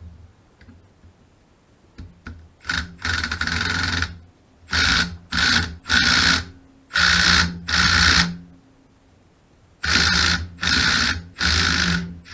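A power tool, driver or drill type, run in about ten short bursts in three groups on the engine's bolts, each burst starting and stopping abruptly. The bolts are threadlocked and hard to loosen.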